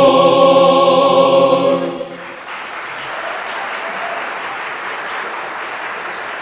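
A choir holds the final sustained chord of a gospel spiritual and cuts off about two seconds in. Audience applause follows and keeps going.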